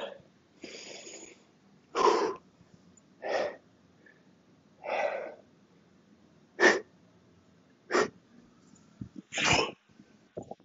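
A man blowing out hard breaths in short bursts, about eight of them, a few very short and sharp, as he grips and starts swinging a 48 kg kettlebell: the breathing of bracing for a heavy lift.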